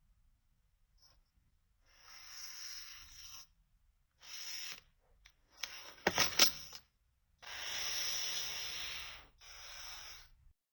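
Packaging being handled during an unboxing: rubbing and rustling in five separate bursts, the longest about two seconds. A few sharp clicks or taps come about six seconds in and are the loudest sounds.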